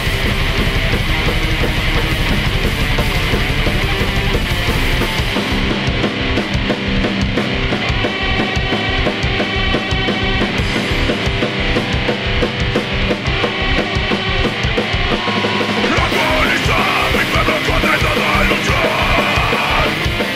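Loud heavy rock band music with electric guitar and drums. A fast, driving beat comes in about five seconds in.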